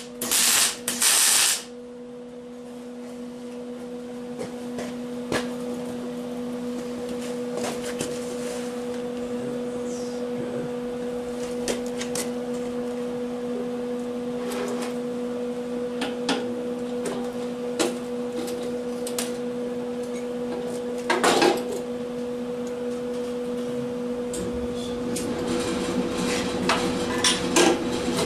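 A steady low hum runs throughout, dotted with scattered light taps and clicks. Loud noisy bursts fill the first second and a half, and one louder knock comes about 21 seconds in.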